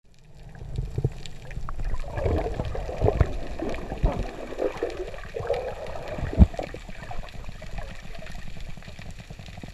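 Muffled water gurgling and swirling around an underwater camera housing as a spearfishing diver swims, with low rumbles and a few dull knocks, the sharpest about six seconds in.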